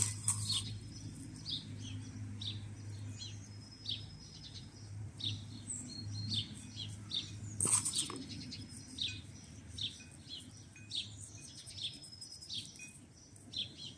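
Small birds chirping in short, high calls throughout, with two short noisy sounds, one at the very start and one about eight seconds in.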